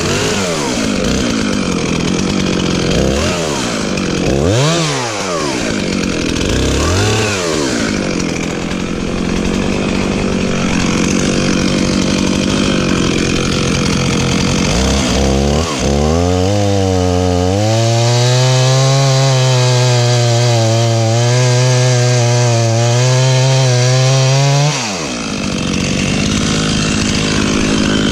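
Stihl MS311 two-stroke chainsaw cutting into an elm trunk, the engine's pitch rising and dipping as the chain bites. Past the middle it holds one steady pitch under load for several seconds, then dips briefly near the end before running on.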